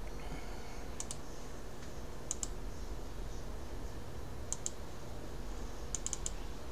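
Clicking at a computer: four short groups of sharp clicks, mostly in pairs, about a second or two apart, over a faint steady electrical hum.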